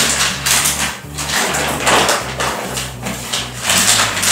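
Thick plastic wrapping on a rolled mattress crinkling and rustling as it is handled and cut with scissors, in repeated uneven swishes.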